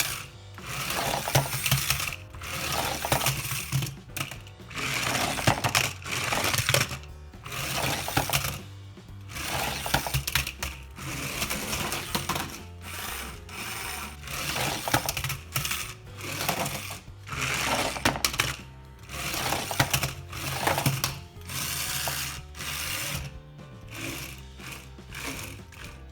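Small electric motor and plastic gearbox of a New Bright Grave Digger radio-controlled monster truck whirring in repeated short throttle bursts, about one every one to two seconds.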